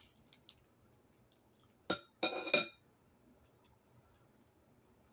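Tableware clinking: a sharp tap about two seconds in, then a short ringing clatter lasting about half a second.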